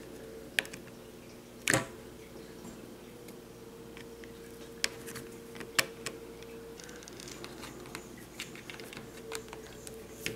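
Scattered clicks and taps of a small Phillips screwdriver and fingers on the hard plastic body of a Syma X5C quadcopter as its little screws are taken out, with a louder knock about two seconds in. A faint steady hum runs underneath.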